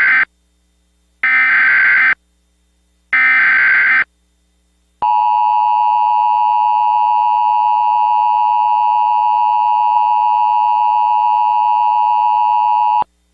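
Emergency Alert System tones: three short SAME header data bursts of about a second each, the first already under way, then the 853 and 960 Hz two-tone EAS attention signal, held steady for about eight seconds and cutting off sharply.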